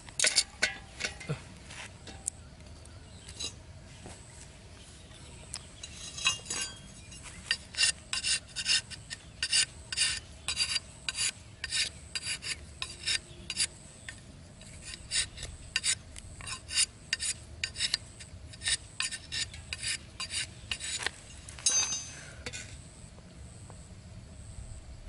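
A knife whittling a thin bamboo stick: a quick run of short scraping strokes, about two a second, with a few pauses.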